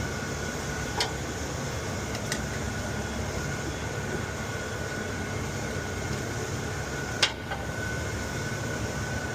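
Steady machinery drone with a thin, steady whine, broken by three sharp clicks: about a second in, a little after two seconds, and a louder one past seven seconds.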